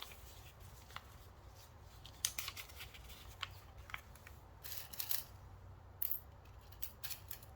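Paper and craft pieces being handled and arranged: light rustling with scattered small clicks and snips.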